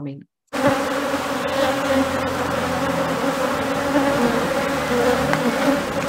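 Honeybee colony buzzing in an open hive with its frames exposed: a steady hum of many bees that starts abruptly about half a second in.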